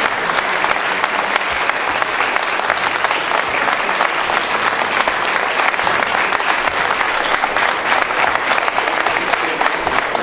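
Large audience applauding, a dense, steady clapping that holds without a break.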